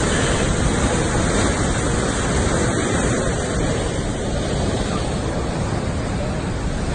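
Steady rushing of fast-flowing, foamy river water.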